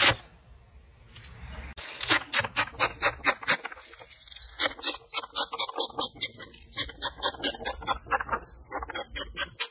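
Knife chopping fresh coriander on a wooden chopping board: a quick, even run of chops, about four a second, starting about two seconds in after a quieter opening.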